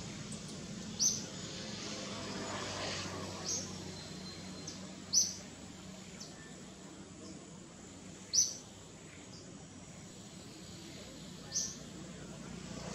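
A bird's short, sharp, high-pitched chirps, five of them a few seconds apart, over a steady background hum.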